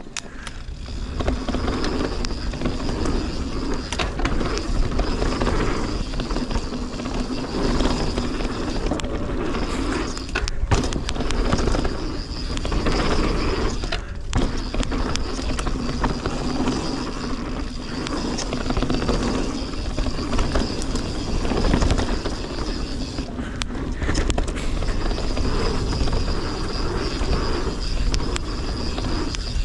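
Mountain bike riding down a dirt forest trail: tyres rolling over the dirt with bike rattle and wind rushing on the camera microphone, plus a faint steady whine that drops out briefly a few times.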